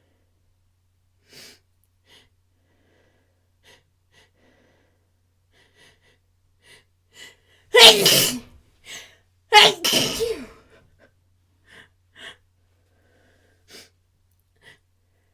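A person's sneezing fit: a build-up of short breaths, then two loud sneezes a little under two seconds apart just past the middle, followed by a few faint breaths.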